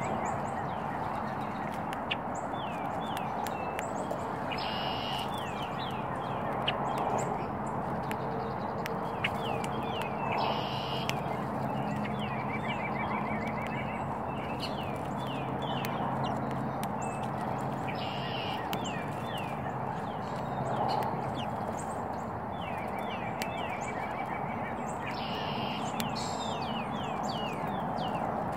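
Small birds calling: many short, quick chirps with a few runs of fast trills, over a steady background hum.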